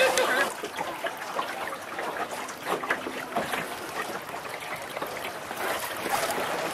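Lake water lapping and splashing in many small, irregular splashes.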